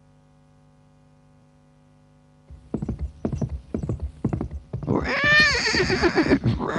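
Horse sound effect: hooves galloping start about two and a half seconds in, after a faint hum. Near the end a horse gives a long neigh over the hoofbeats, rising then falling in pitch.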